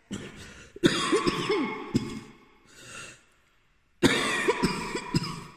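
A person coughing in two short fits, about three seconds apart, each starting suddenly.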